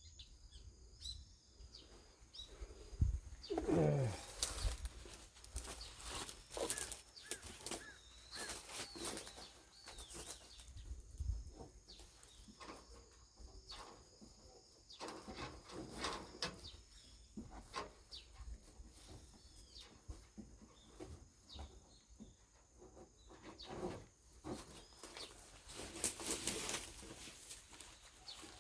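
Shade net rustling and flapping in irregular bursts as it is pulled off a solar heating collector panel.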